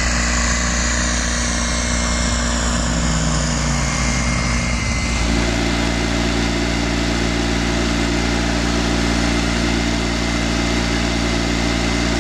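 Engine of a Rapid single-axle tractor running steadily as it drives along. About five seconds in the sound changes to an even, constant drone.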